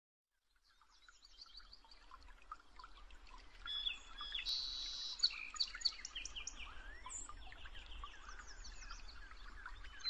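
Several songbirds chirping and singing together, many short overlapping chirps and whistles, fading in from silence about a second in over a faint low rumble.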